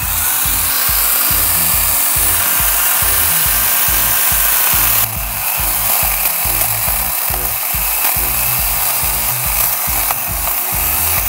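Small cordless electric chainsaw running steadily as it cuts through a thick thorny bamboo (Bambusa blumeana) culm near its base, the cut easing briefly about five seconds in.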